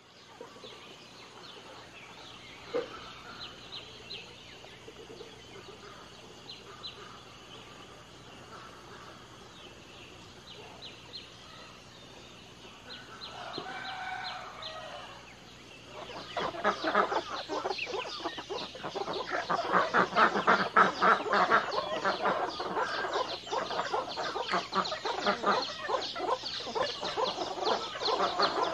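A flock of chickens clucking, faint at first and then loud and busy from about halfway through.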